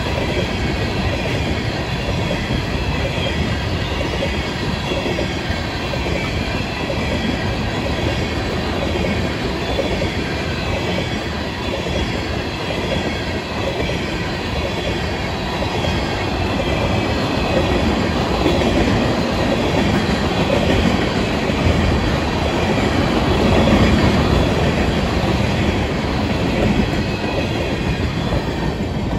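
Tank cars of a long Florida East Coast Railway freight train rolling past: a steady rumble and clatter of steel wheels on rail, a little louder in the second half.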